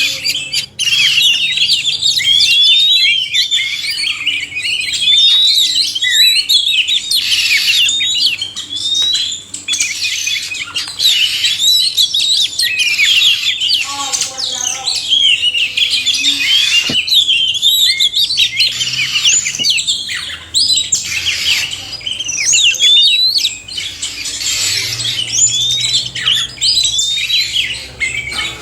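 Oriental magpie-robins (kacer), male and female, singing together: a dense, unbroken stream of quick whistles, chirps and trills overlapping one another.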